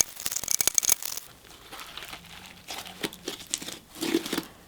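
Fluffy slime made from glue, shaving cream and borax being squished and pulled, giving a run of sticky crackling clicks that come thickest in the first second and then thin out.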